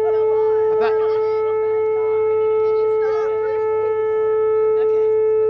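Outdoor warning siren (civil-defense / tornado siren) sounding one long steady tone at a single pitch, with no rise or fall. The crowd takes it for the city's routine siren test.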